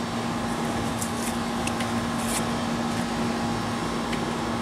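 A steady mechanical hum with a constant drone and an even rush of noise, with a few faint clicks.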